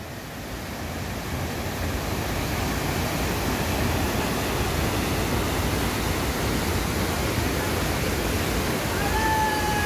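Waterfall's rushing water, a steady wash of noise that grows louder over the first few seconds as the falls are approached, then holds. Near the end a single held whistle-like note starts, sliding slightly down in pitch.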